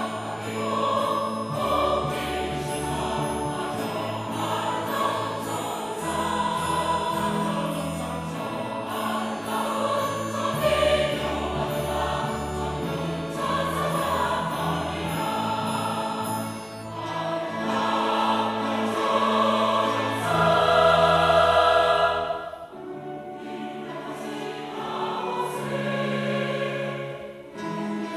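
Choral music: a choir singing a slow sacred song in long held notes over a low sustained accompaniment.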